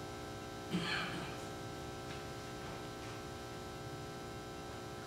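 Steady electrical mains hum with many overtones, with one brief soft sound about a second in.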